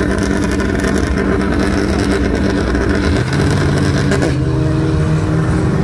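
Drag-race car engines running at the start line, a steady engine note that steps down to a lower pitch about three seconds in.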